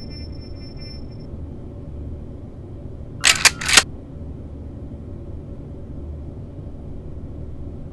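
Steady low rumble, with a high electronic tone that stops about a second in; about three seconds in comes a quick run of two or three sharp mechanical clicks, the loudest sound.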